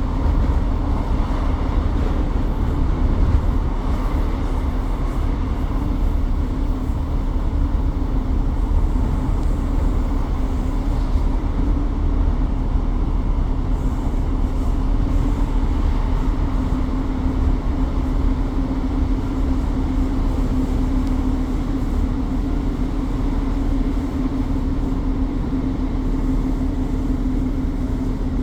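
Class 150 Sprinter diesel multiple unit's underfloor Cummins diesel engine running, heard from inside the train: a steady low rumble with a constant droning hum that rises slightly about halfway through and then holds.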